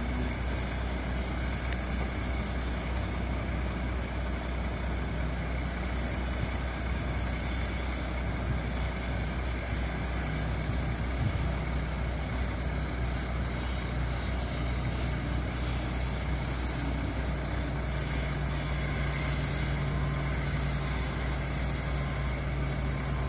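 An engine idling steadily with a constant low drone; a second steady hum joins about 18 seconds in.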